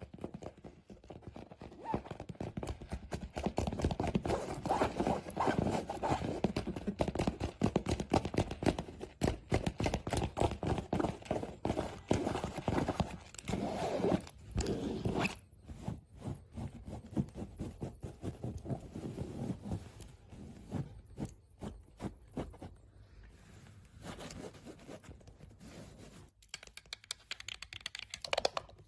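Long, decorated acrylic nails scratching rapidly over fabric in many quick, dense strokes. The strokes are loudest in the first half and softer from about halfway through.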